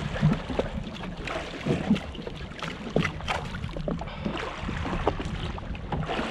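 Choppy water slapping irregularly against the hull of a jet ski drifting at sea, over a constant low rumble of wind and water.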